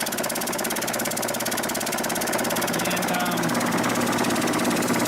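Delta bandsaw running, with the small air pump fitted to it pulsing in a fast, even chatter.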